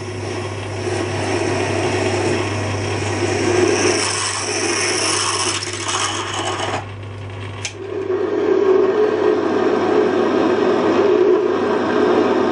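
Metal lathe running while a twist drill fed from the tailstock bores into a spinning cast aluminium pulley blank, the drill cutting with a steady scraping, rasping noise over the machine's hum. About seven seconds in the sound breaks off and resumes as a larger drill opens up the hole.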